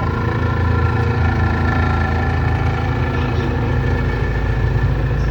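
Boat engine running at a steady speed, an even, unchanging hum.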